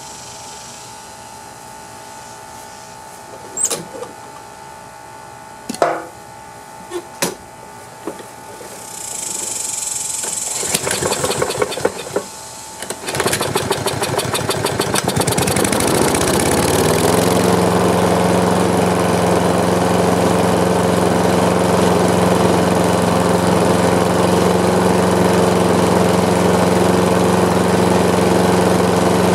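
A few clicks, then the Kohler lawn mower engine is cranked for a couple of seconds and catches about 13 seconds in. It revs up and settles by around 17 seconds into a steady run with no knocking, its carbon buildup cleared and oil freshly changed.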